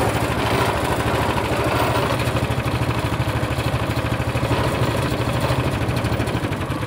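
Zongshen 15 hp single-cylinder four-stroke engine of a motorized towing sled idling steadily with an even pulsing beat while the machine is tipped over on its side. It keeps running: on this side the tilt does not trip the oil-level sensor, which the owner says stalls it when tipped the other way.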